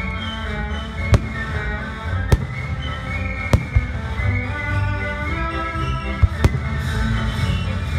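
Fireworks going off with five sharp bangs: three about a second apart, then two in quick succession later on, over music playing.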